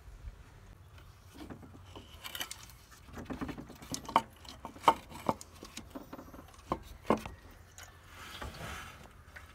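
Hand tools and metal engine parts being handled: a scatter of sharp clicks and knocks, most of them in the middle seconds, with short rubbing sounds in between.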